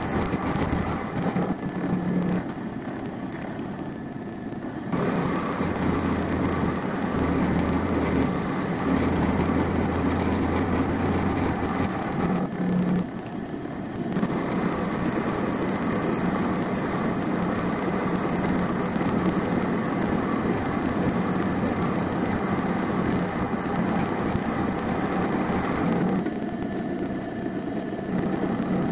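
Milling machine running with an end mill cutting a slot into a large round metal bar, a steady machining noise with a thin high whine over a low hum. The cutting noise drops away briefly twice, early and again about halfway through.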